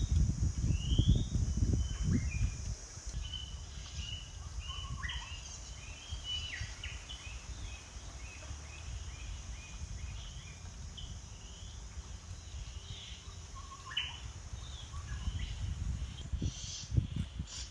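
Forest birds calling with many short rising chirps and whistles, over a steady high insect buzz. Low thumping and rustling noise in the first couple of seconds and again near the end.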